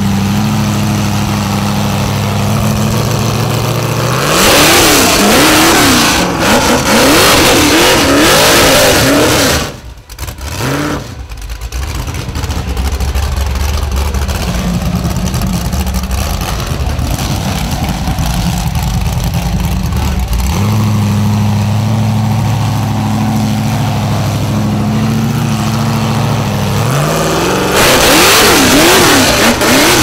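Rock bouncer buggy's V8 engine idling, then revved hard in wavering full-throttle bursts during a rock-ledge climb. The sound drops out briefly about ten seconds in. It settles back to a steady idle and revs hard again near the end.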